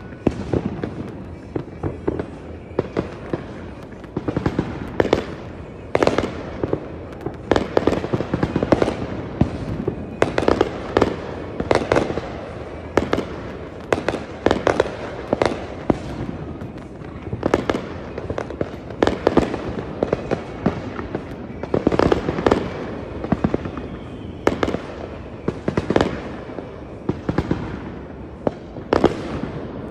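Aerial firework shells bursting in a dense barrage: an irregular string of sharp bangs, often one or two loud ones a second, with smaller reports between them and a continuous rumble underneath.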